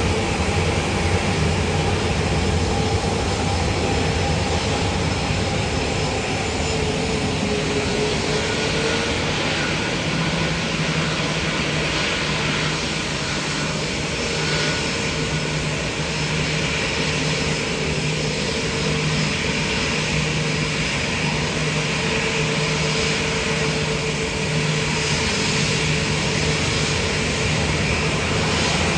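Jet engines of a Boeing 737-800 (CFM56-7B turbofans) running at low taxi power as the airliner taxis and lines up on the runway: a steady jet rumble with a faint low hum.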